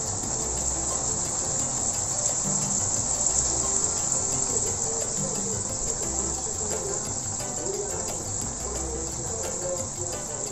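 Insects shrilling in a steady, high-pitched drone without a break.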